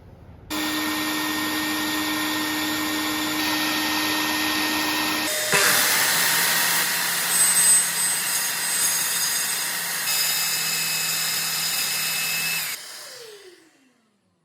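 Electric circular saw running at full speed, its sound shifting abruptly about five seconds in. Near the end it is switched off and winds down, its pitch falling away.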